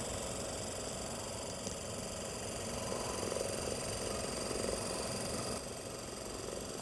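A Super 8 film mechanism running steadily, a small motor whirring with a fast, even clatter of film being pulled through the gate. About five and a half seconds in the sound drops a little and changes.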